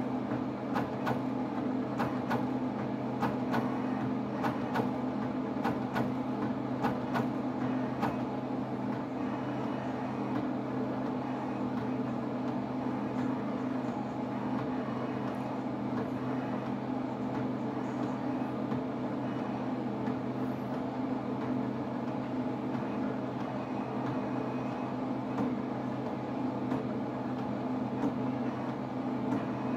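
HP 7550A pen plotter drawing in demo mode: a steady whir and hum of its motors driving pen and paper, with a run of quick, sharp clicks through the first eight seconds or so.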